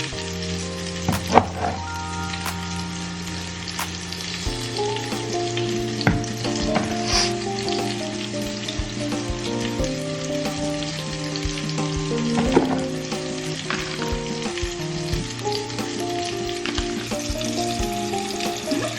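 Seasoned shrimp sizzling in a skillet, with a steady hiss and a few sharp utensil clicks, over background music of sustained chords.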